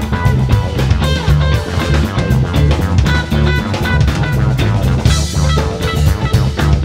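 Live rock band playing an instrumental jam: two electric guitars, bass, keyboards and drum kit, with a cymbal crash about five seconds in.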